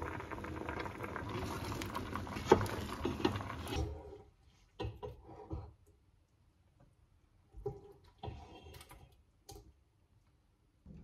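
Rice boiling hard in a stainless saucepan on a gas burner: steady bubbling with a sharp click about two and a half seconds in. It stops after about four seconds, and a few short bouts of pot and utensil handling at the stove follow.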